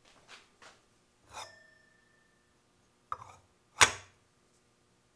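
A few small knocks and clicks of metal flashlight parts being handled on a workbench. One, about a second and a half in, has a brief metallic ring, and the loudest is a sharp click near the end.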